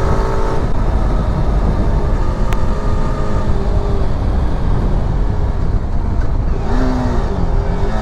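Motorcycle riding with heavy wind buffeting on the microphone. A steady engine note fades in the first second, and near the end the engine revs up and back down twice.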